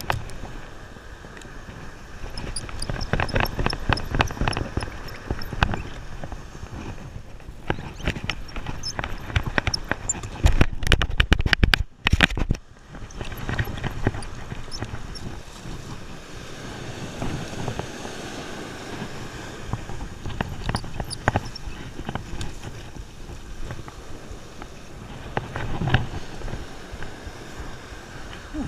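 Surf and wind noise on the microphone, broken by bursts of rapid clicks and knocks as a Penn Squidder conventional surf reel and rod are handled and worked. The knocking is loudest and densest, with a low rumble, about ten to twelve seconds in.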